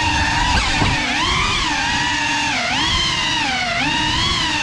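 Geprc Cinelog 35 cinewhoop drone's brushless motors and propellers whining in flight, the pitch sliding up and down over and over as the throttle changes, with a sharp dip just under a second in.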